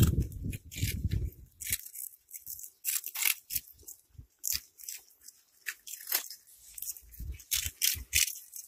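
Cats chewing crunchy puffed snack balls, making rapid, irregular crisp cracks. A low rumble runs under the first couple of seconds.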